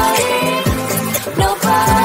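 Background pop music with a steady beat of deep kick drums that drop in pitch.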